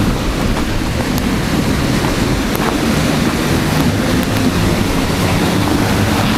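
Wind buffeting the camera microphone: a steady, fairly loud low rumble with a rushing hiss over it.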